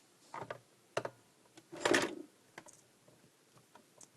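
A few sharp clicks and knocks of a screwdriver and hands working the screws out of the back of a plastic radio-cassette player's casing, the loudest knock about two seconds in.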